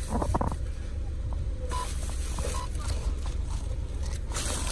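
Car engine idling, heard from inside the cabin as a steady low rumble. A few brief knocks and rustles come in the first half-second, and two short faint beeps come around the middle.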